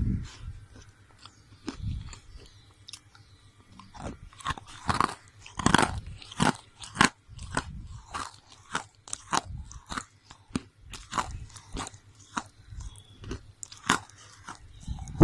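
Close-up crunching and chewing of roasted gray slate: a steady run of sharp, irregular crunches, loudest about five to seven seconds in.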